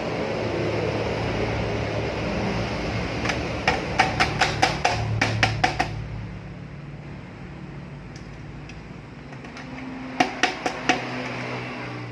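Hammer blows: a quick run of about a dozen strikes, then four more near the end, each a sharp knock with a short ring.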